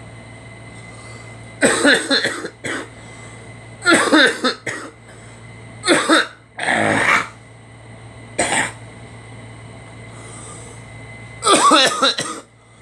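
People coughing in about six short fits, each a second or less, with pauses between them, over a steady low hum.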